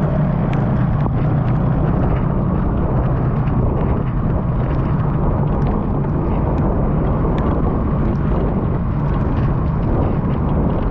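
Steady, loud rumble of wind and road noise from a ride, with small scattered clicks.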